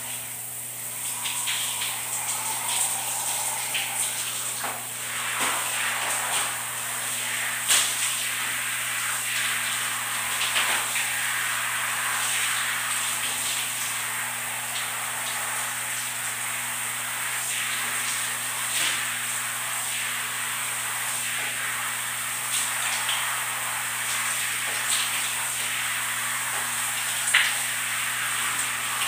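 Shower water spraying steadily onto a person and splattering on a tiled floor, with a few sharper splashes, the clearest about eight seconds in and near the end. A faint low hum runs underneath.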